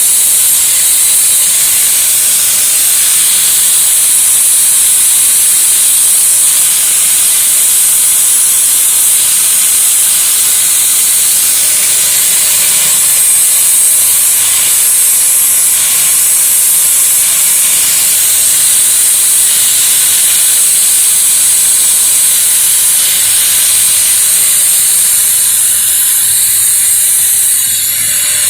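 Electric arc welding: a steady, loud sizzling hiss of the arc as a socket and pipe are welded onto a steel drill bit, easing off slightly near the end.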